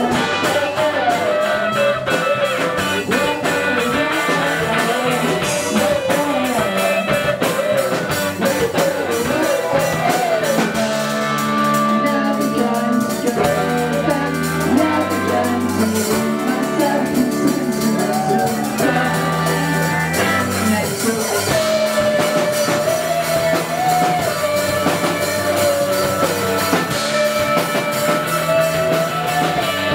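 Indie pop band playing live: drum kit, electric bass and electric guitar, with a wavering melody line carried over the top.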